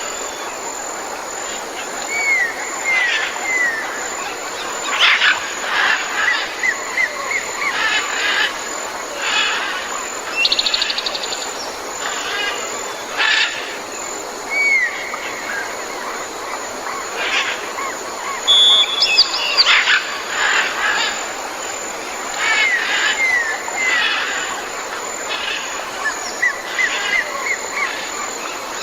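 Tropical jungle ambience: several birds calling over a steady background hiss. The calls include sets of three downward-sliding whistles, a short buzzy trill and sharper chirps. A thin, high, steady whine runs underneath.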